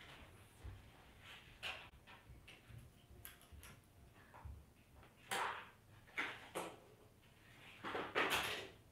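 Faint scattered knocks and rustling scrapes of household handling noise, with a few louder scrapes in the second half.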